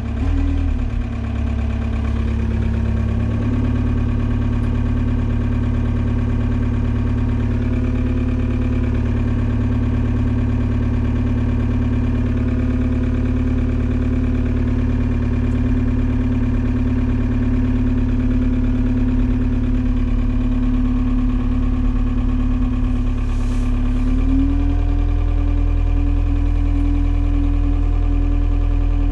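Forklift running while its mast raises and lowers a pallet: a loud steady hum that steps up in pitch a few seconds in and again near the end.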